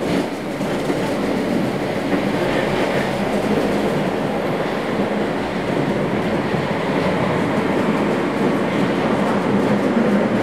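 Tram running along street track: the steady running noise of its wheels on the rails.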